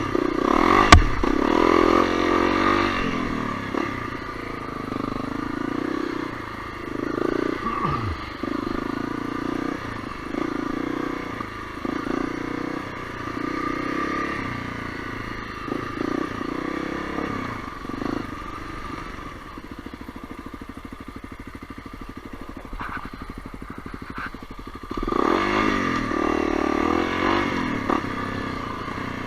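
Honda CRF250L's single-cylinder four-stroke engine on a dirt trail, its pitch rising and falling with repeated blips of throttle, with a sharp knock about a second in. Near the end of the first two-thirds it drops to a low, even putter, off the throttle, before pulling again.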